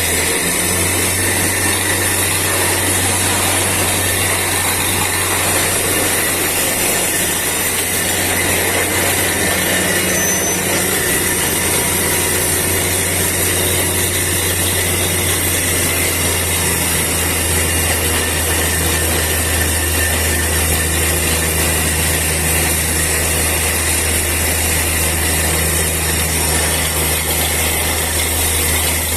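Borewell drilling rig drilling, a loud, steady machine noise with a deep hum underneath that does not let up.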